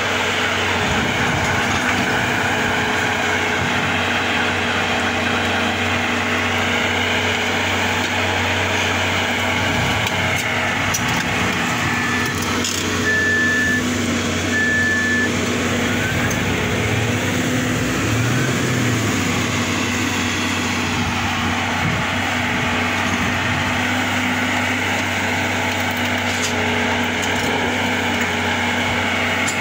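Heavy diesel engine, most likely the Hitachi EX200 excavator's, running steadily with a constant low drone. About halfway through come three short high beeps.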